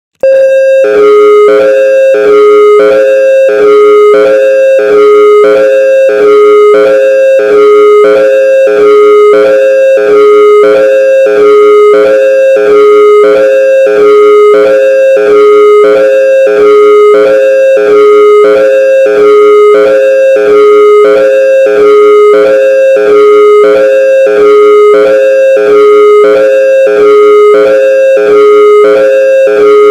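Whelen WS-2000R electronic outdoor warning siren sounding a hi-lo tone: two steady notes, high and low, alternating evenly over and over, loud. It starts abruptly as one tone in an all-tone test sequence.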